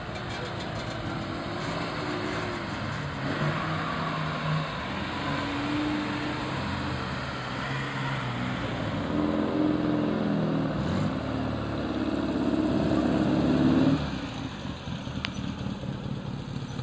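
Classic sports cars driving slowly past one after another, their engines running with short revs that rise and fall. The loudest rev climbs steadily and then drops off sharply about three-quarters of the way through.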